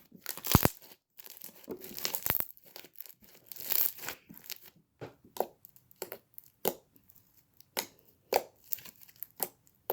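Clear slime being worked by hand, giving irregular sticky crackles and small pops, thicker in the first few seconds and then more scattered.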